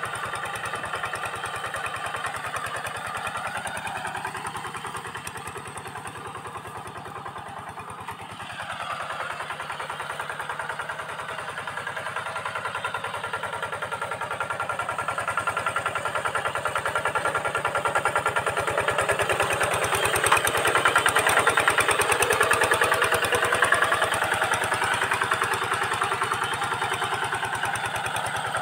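Single-cylinder diesel engine of a two-wheel hand tractor running steadily under load while it pulls a harrow through dry soil. It grows louder about halfway through as the tractor comes closer.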